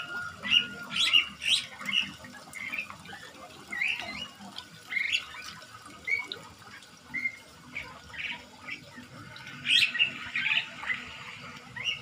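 Songbirds in a walk-in aviary calling: many short, high chirps and squawks from several birds, scattered throughout, with a denser burst of calls about ten seconds in.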